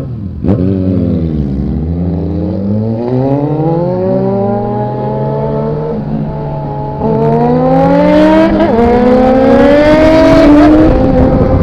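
Inline-four sport motorcycle engine with a loud aftermarket exhaust, revving and accelerating. A sharp blip about half a second in falls back, then the pitch climbs slowly under acceleration, gets louder about seven seconds in and climbs higher before dropping back near the end.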